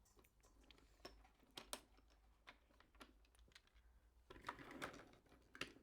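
Faint scattered clicks and light taps of toy train trucks being handled and coupled on a track, with a busier burst of clicking and rubbing about four and a half seconds in.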